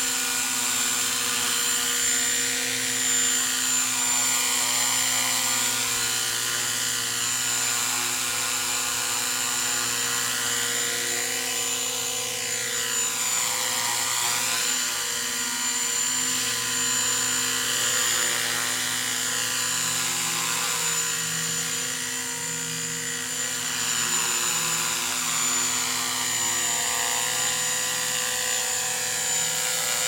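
Small electric radio-controlled helicopter, an Align T-Rex 250 SE, hovering: a steady high motor whine with the rotor's buzz, its tone swirling as the helicopter drifts about. A ticking heard from it is the canopy rattling, not a mechanical fault.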